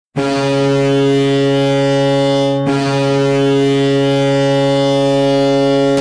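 Toronto Maple Leafs arena goal horn sounding one long, steady, deep blast, with a brief break about two and a half seconds in.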